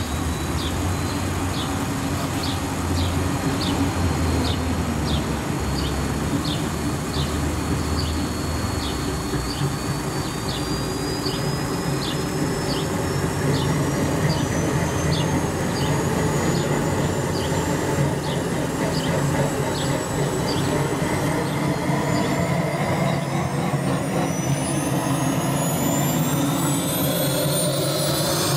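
JetCat P-180 model jet turbine starting up: a steady ticking about three times every two seconds, under a thin whine that rises steadily in pitch, with more rising tones joining in the last few seconds as the turbine spools up.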